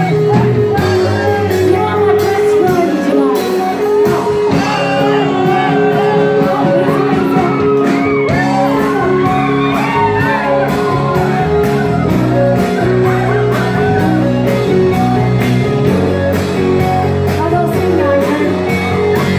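Live rock band playing loud amplified music, electric guitar over a steady drum beat, with voices singing and shouting along.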